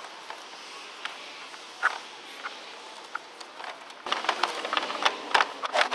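A cargo tie-down strap and its metal hook being handled and clipped onto a bed-side tie-down anchor in a pickup bed: scattered light clicks and rattles, turning into a quick run of clicks about four seconds in.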